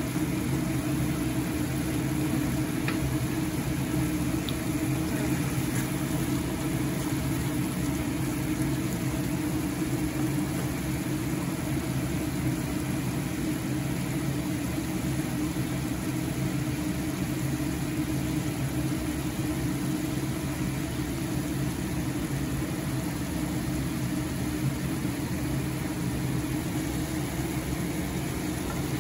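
Chicken and tomato curry simmering in a stainless steel frying pan, under a steady low mechanical hum.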